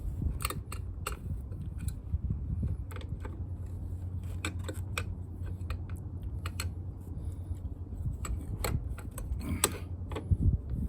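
Irregular sharp clicks and clinks of hand tools and scooter parts being handled during a CVT drive belt job, over a steady low hum.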